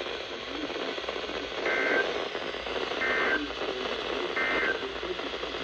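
Weather radio static with three short, evenly spaced two-tone digital data bursts: the EAS SAME end-of-message code that closes a severe thunderstorm warning broadcast.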